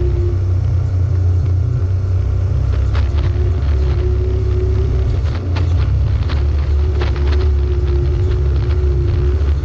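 Off-road vehicle's engine running steadily under load while climbing a steep dirt track, a deep rumble with a held mid tone that fades in and out. Scattered sharp knocks and rattles.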